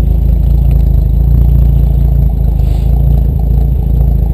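1954 Dodge M37 Power Wagon's flathead inline-six engine idling, a steady low running sound that holds even throughout.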